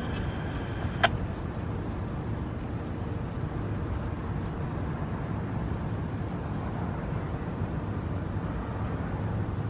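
Steady low outdoor background rumble, like distant traffic, with one sharp click about a second in as faint radio tones cut off.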